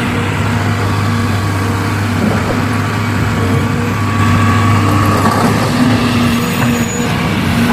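Diesel engine of a truck or excavator running steadily, getting a little louder about halfway through.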